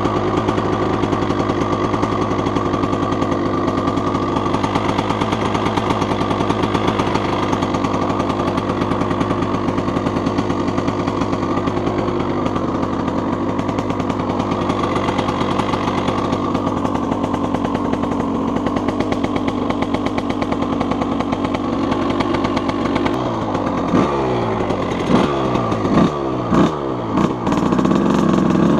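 1987 Suzuki RM125's single-cylinder two-stroke engine running steadily under the rider. About 23 seconds in, it gives several quick revs, each rising and falling in pitch.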